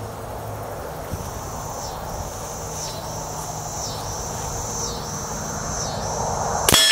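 Insects call high and steady in pulses about a second long. Near the end a single rifle shot cracks out from a suppressed 6.5 Creedmoor Sig Sauer Cross rifle.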